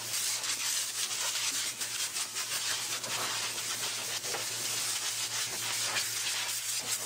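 Compressed-air blow gun hissing steadily as it blows caked dust out of a clogged pleated canister filter, the hiss flickering a little as the nozzle moves over the pleats.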